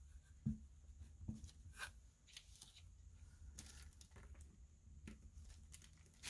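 Faint, light taps and rustles of hands handling a clear plastic stamp and a paper card on a tabletop, the sharpest tap about half a second in, with a few softer ones after.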